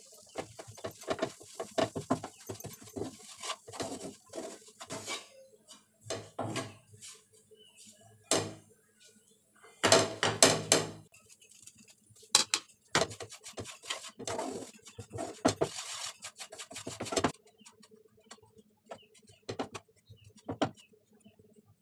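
Wooden spatula scraping and knocking against a frying pan in irregular strokes while gram flour is stirred and roasted in a little oil, with a louder run of scraping about ten seconds in. A faint steady hum lies underneath.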